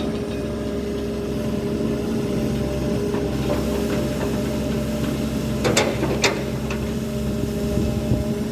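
Hydraulic excavator's diesel engine running at a steady pitch, with a quick cluster of sharp metallic knocks a little past halfway.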